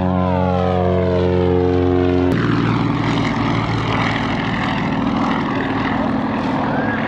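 Single-engine propeller airshow plane flying low overhead under power, trailing smoke: a loud, steady engine-and-propeller drone that changes abruptly about two seconds in to a rougher, noisier sound.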